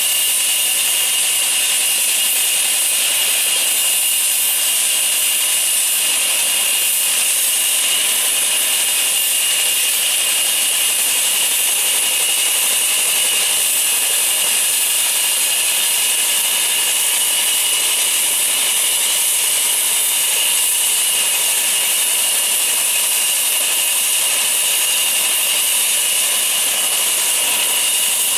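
Turbomeca Arrius 2F turboshaft engine of an Airbus EC120B Colibri helicopter running on the ground with the rotor turning slowly: a steady high-pitched turbine whine over a loud hiss.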